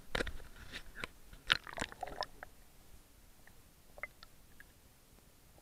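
Water splashing and slapping against an action camera's housing as it dips into a lake beside a bass being released: a run of sharp splashes and knocks in the first two seconds or so, then muffled underwater quiet with a few faint clicks.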